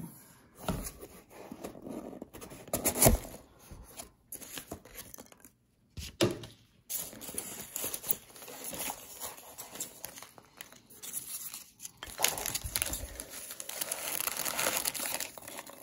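Cardboard box being opened and hands rummaging through foam packing peanuts: irregular rustling, crinkling and scraping, with a sharp louder noise about three seconds in and a brief pause near six seconds.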